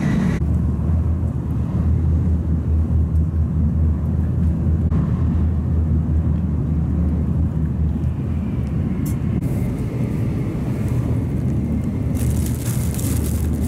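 Steady low rumble of a Tokaido Shinkansen train running at speed, heard inside the passenger cabin. Near the end, plastic food wrapping crinkles.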